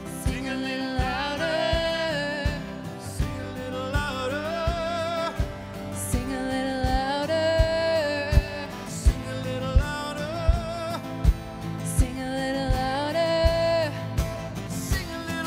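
A worship band playing a song: a voice singing a melody over the band, with a steady drum beat.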